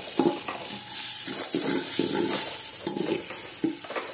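Sliced onions sizzling in hot oil in an aluminium pot, stirred with a slotted spoon that scrapes and knocks against the pot again and again.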